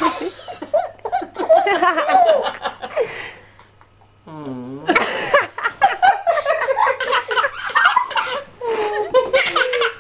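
People laughing and giggling hard in two long bouts. About four seconds in, the laughter breaks for a short low sound that rises in pitch.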